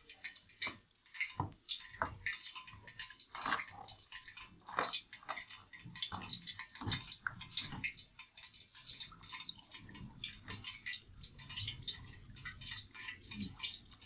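Tap water running onto gloved hands and splashing into a plastic bowl as a fish is rinsed and rubbed clean, with many irregular splashes and drips.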